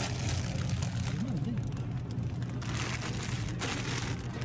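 A plastic bag of frozen french fries rustling and crinkling in a few short bursts as it is pulled from a freezer case and handled, over a steady low hum.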